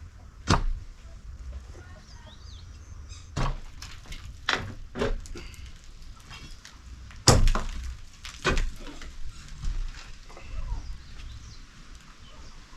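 A series of irregular sharp knocks, about six in all, the loudest about seven seconds in, with faint bird chirps between them.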